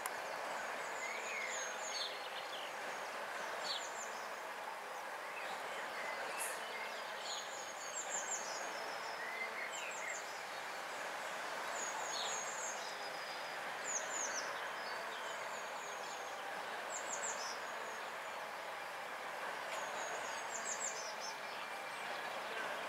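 Small birds chirping and trilling in short high phrases, again and again, over a steady background hiss.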